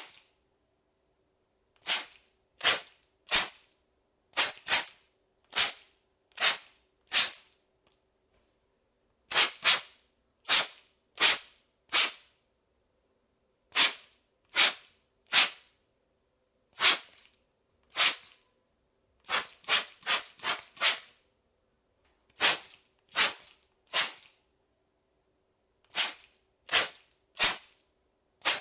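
Spray bottle spritzing water in short hissing squirts, about thirty of them in irregular runs of two to five with pauses between.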